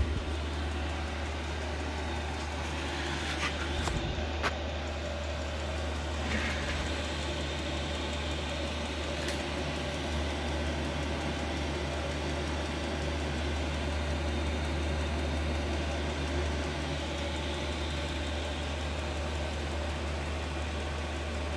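A steady low machine hum with an even hiss over it, like a running fan or heater, with a few light clicks between about three and nine seconds in.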